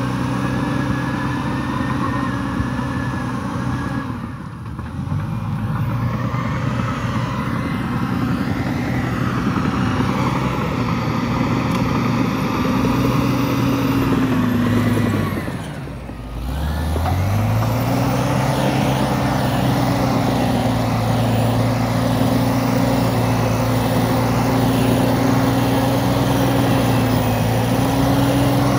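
CAT D7R bulldozer's diesel engine running steadily under load as it pushes through brush. About 16 seconds in, its pitch and level drop sharply, then climb back to the steady running pitch.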